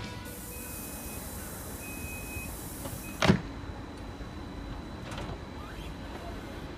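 SBB RABDe 500 ICN tilting train at the platform before departure: a hiss of air with two short beeps, typical of the door-closing warning, then one sharp bang about three seconds in as a door shuts, over the train's low steady hum.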